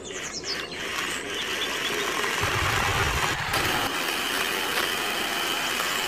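Small electric motor of a toy DIY tractor running and turning a belt-and-pulley drive to a miniature grain mill: a steady whir that builds over the first second or so.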